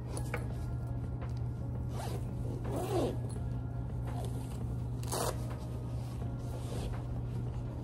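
Backpack zipper pulled open in a few short strokes, with the bag rustling; the loudest pull comes about five seconds in. A steady low hum runs underneath.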